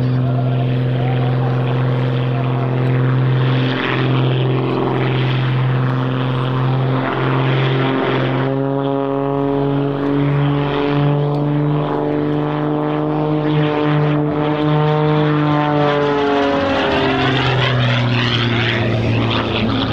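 Single-engine aerobatic propeller plane (an MXS-RH) droning in flight, its engine and propeller note steady at first. The pitch bends upward through the middle, then falls away after about 16 seconds as the plane passes.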